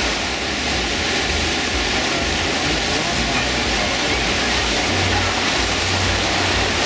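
Whitewater rushing steadily through a river-rapids raft ride channel, with a low rumble underneath.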